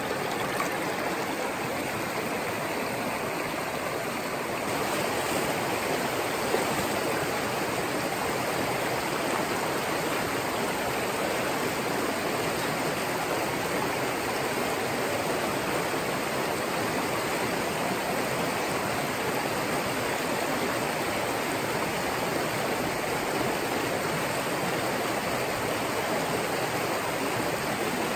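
A small mountain stream running high with snowmelt, rushing over rocks and riffles in a steady rush of water. It gets a little fuller about four and a half seconds in.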